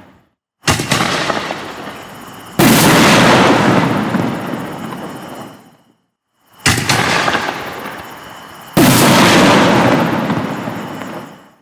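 Two 5-inch canister shells from a Black Cat Neon Diablo 24 firework cake. Each is launched with a sharp thump and bursts about two seconds later with a loud boom that echoes and fades over a few seconds.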